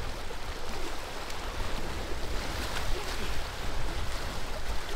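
Lake water lapping and splashing against a rock shoreline in a steady wash, with a low rumble of wind on the microphone.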